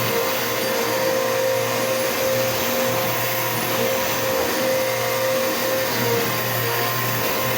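Bissell PowerForce Bagless upright vacuum cleaner running steadily, its motor giving a constant whine over the rush of air.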